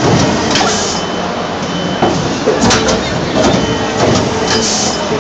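Injection moulding machine running a fast cycle: repeated sharp knocks of the mechanism opening and closing over a steady whine, with two short hisses of air about four seconds apart.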